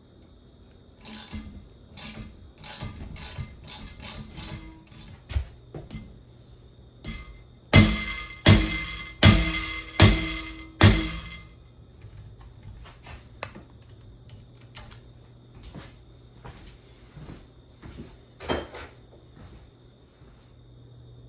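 Metal tools at work on a bicycle: a run of clicks and clanks, then five heavy knocks a little under a second apart about eight seconds in, then scattered clicks.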